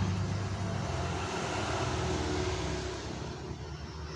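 A vehicle engine running steadily nearby, loudest at first and dropping away about three seconds in.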